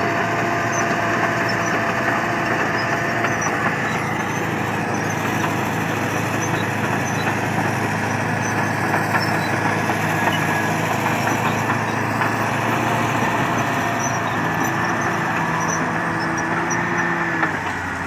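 Caterpillar D9R bulldozer's V8 diesel engine running steadily under load as the dozer pushes topsoil down a slope.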